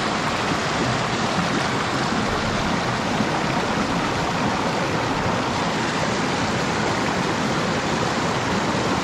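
Mountain stream rushing steadily over and around rocks, heard close up, a constant even wash of running water.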